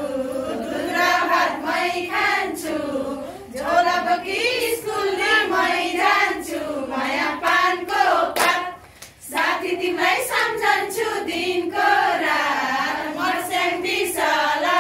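A group of women singing a Nepali going-home farewell song together, clapping their hands in time as they sing, with a short break about halfway through.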